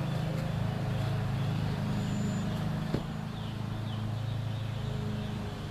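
A steady low mechanical drone, like a running engine, with a single sharp click about three seconds in and a few faint bird chirps.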